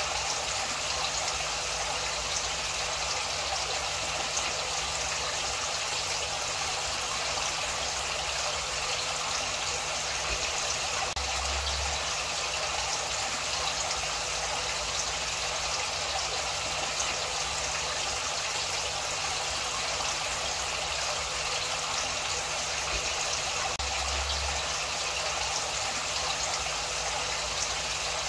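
Steady rush of running water with a faint low hum beneath it.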